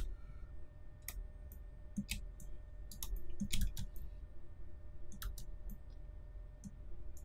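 Computer keyboard keys and mouse buttons clicking, a dozen or so sharp, irregular clicks with a few in quick succession.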